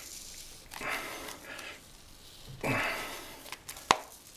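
Heavy, strained breathing from a man straining to twist an apple apart with his bare hands: two long effortful exhalations, the second more forceful. A single sharp click comes near the end, and the apple does not split.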